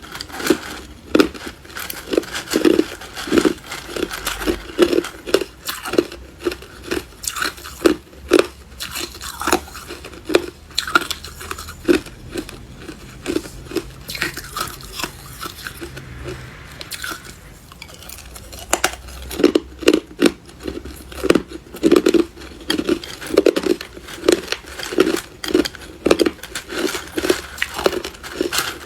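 Hard clear ice being bitten and chewed: a steady run of sharp crunches, about two a second, with a short lull just past the middle.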